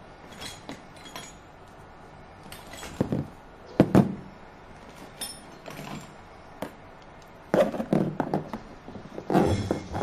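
Scattered knocks and clinks of crimped metal cable lugs and cables being set down and moved on a metal-topped table. The sharpest knock comes about four seconds in, and a busier run of handling noises comes near the end.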